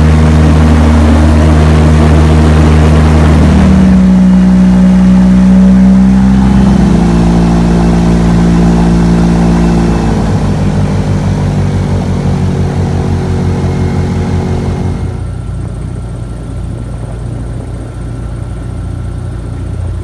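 Boat engine running loud and steady, its pitch changing in steps a few times, then growing gradually quieter over the second half.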